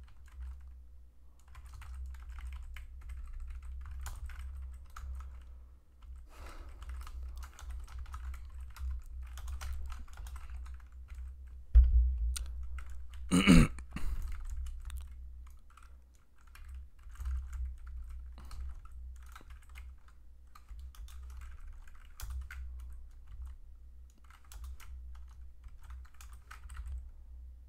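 Computer keyboard typing: irregular runs of keystrokes with pauses, each key click carrying a dull low thud. About halfway through there is a louder thump, followed by a brief louder sound.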